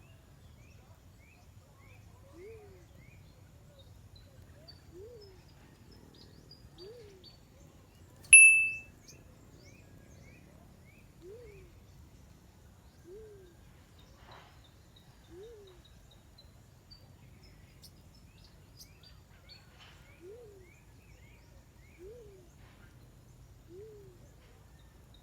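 Low dove hoots, the call of the black-chinned fruit dove, each a short note rising and falling in pitch, repeated about every two seconds, over faint high chirps of other birds. One loud sharp chirp rings out about eight seconds in.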